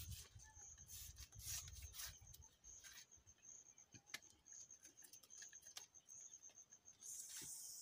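Machete blade slicing lengthwise along a sisal leaf to split it into thin strips: a few short, irregular strokes, faint, with a steady high insect chirp and a brief high hiss near the end.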